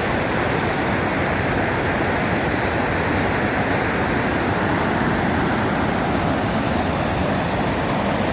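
Waterfall in heavy flow: a steady, loud rush of falling water.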